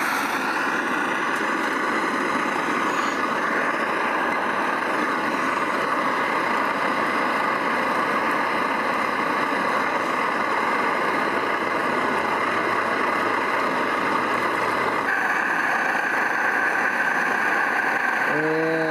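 LSO 618/619 pressurized gasoline camping stove burning at full valve with a loud, steady rushing noise. The noise brightens slightly about fifteen seconds in.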